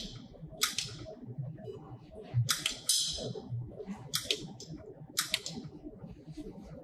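Pulsed jewelry laser welder firing single shots, about half a dozen sharp snaps at uneven intervals, each dying away quickly.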